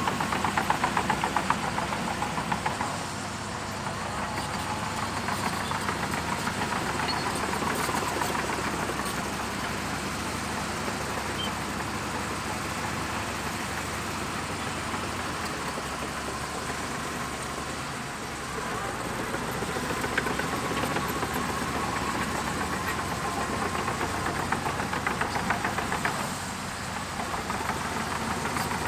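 Shantui DH17C2 bulldozer's diesel engine running steadily with a rapid knocking pulse. It is louder at the start and again for several seconds near the end, as the load changes.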